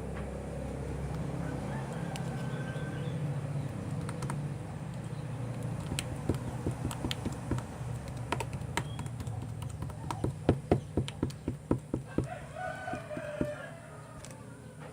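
Slime being squeezed and worked by hand, giving a quick run of small sharp clicks and pops through the middle of the stretch that comes fastest, about five a second, shortly before the end. Under it is a steady low hum.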